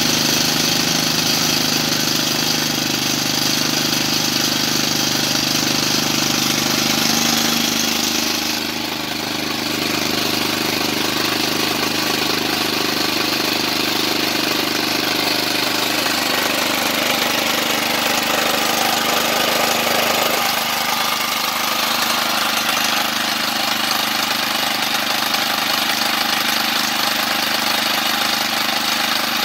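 Honda GCV160 single-cylinder four-stroke engine on a VARI garden tractor running steadily. Its note shifts, with a brief drop in loudness about 8 seconds in, and changes again around 20 seconds.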